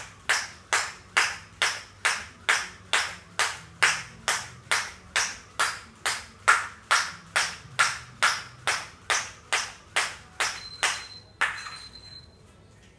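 Jump rope slapping the floor mat on each turn of single-bounce skipping, a crisp slap about twice a second, which stops about eleven seconds in. Near the end, two short high electronic beeps from an interval timer mark the end of the work interval.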